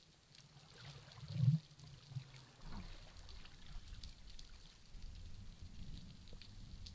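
Underwater sound picked up by a spearfisher's camera: scattered faint clicks and crackles over low water noise, with one short low thump about a second and a half in, and a steady low rush of water from a little before halfway on.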